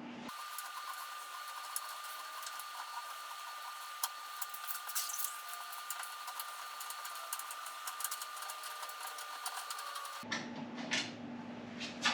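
Allen wrench working the luggage-rack bolts off a motorcycle sissy bar: rapid light metal clicks and rattles over a steady high whine. It starts just after the beginning and cuts off abruptly about two seconds before the end.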